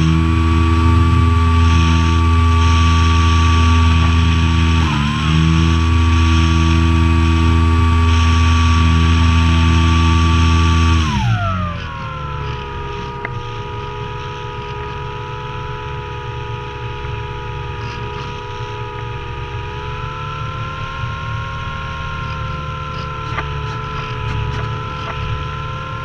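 Electric motor and propeller of an Apprentice S radio-controlled trainer plane running at a steady high pitch, dipping briefly about five seconds in. A little before halfway it is throttled back to a lower, quieter tone that holds and later rises a little.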